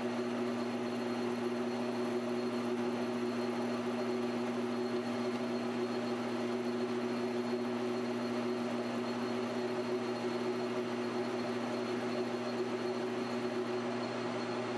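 Precision Matthews PM1236T metal lathe running steadily, a constant hum with a faint high whine, while its tool cuts a chamfer on a titanium ring turning on an arbor.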